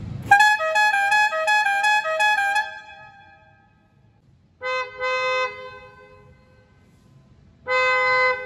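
Aftermarket car horns sounded one after another. First a musical air horn plays a fast tune of changing notes for about two seconds, then two separate steady horn blasts follow, one a little past the middle and one near the end.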